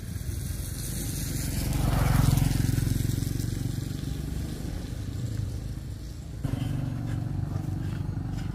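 A small motorcycle engine running, growing louder to a peak about two seconds in and then fading, as if riding past close by. The sound changes abruptly later on.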